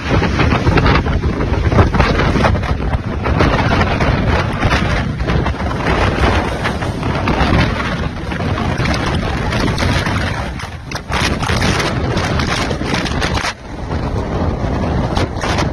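Strong storm wind from a passing tornado blasting across a phone's microphone: a loud, rough, low rumbling rush, with two brief lulls in the second half.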